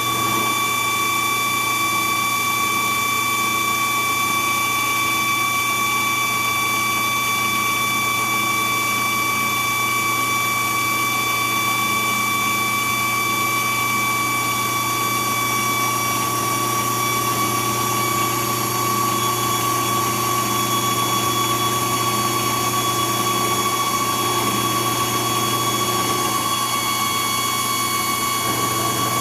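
A grinder and the drill press running together, grinding the drill press chuck true to cure its runout: a steady high whine over a low hum.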